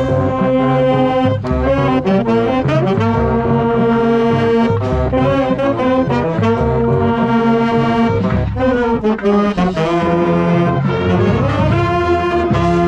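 Marching band saxophones and brass playing held chords, heard close up from among the players. The chords change every couple of seconds over sustained low notes.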